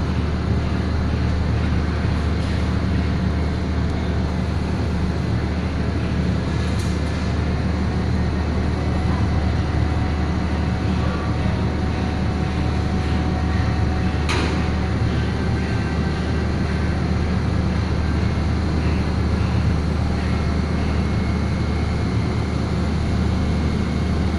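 A machine running steadily with a constant low hum, and a sharp click about fourteen seconds in.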